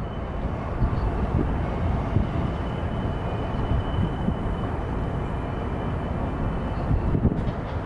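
Outdoor ambience of steady low rumble with irregular gusts of wind buffeting the microphone, and a faint high steady whine through the first half.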